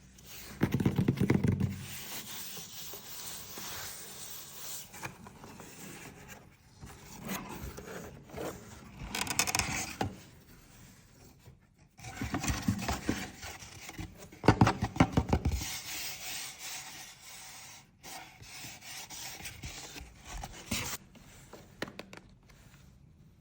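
Hands handling and opening cosmetics packaging: irregular rubbing and scraping noises, with louder spells about a second in, around nine seconds and around fifteen seconds.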